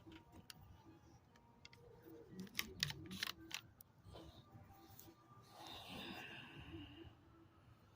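Faint handling sounds: a quick run of light clicks about two and a half to three and a half seconds in, then a softer rustle near the end.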